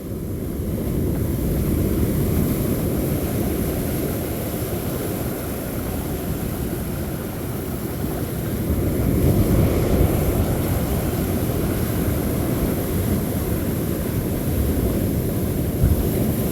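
Wind blowing across the microphone over breaking surf: a loud, steady low rumble that swells a little about nine seconds in.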